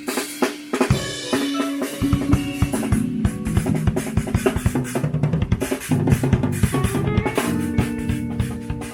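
Live band playing, led by a busy drum kit: rapid snare, kick and cymbal strikes in fills and grooves. Sustained bass and keyboard notes run underneath.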